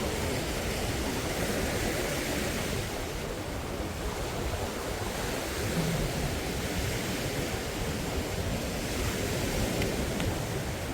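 Steady wash of surf on a sandy beach, mixed with wind rumbling on the microphone.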